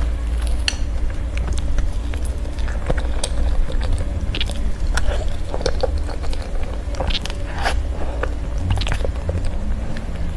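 Close-miked eating of soft crepe cake: irregular wet chewing and mouth clicks and smacks, over a steady low hum.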